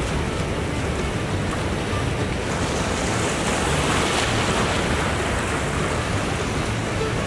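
Wind blowing over the microphone: a steady rushing noise with an uneven low rumble, swelling in a stronger gust around the middle.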